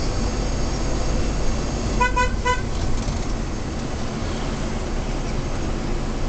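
Steady engine and road rumble heard inside a minivan's cabin. About two seconds in, a car horn gives three quick short toots.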